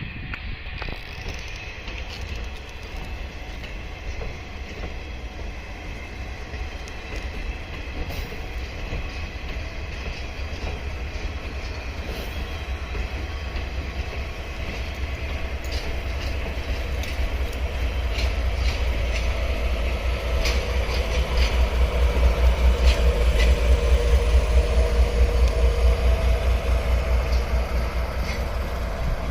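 DE10 diesel-hydraulic locomotive hauling four KiHa 141-series coaches past slowly: engine running with a low pulsing rumble and wheels on the rails, growing louder to its loudest about two-thirds of the way through, then easing a little.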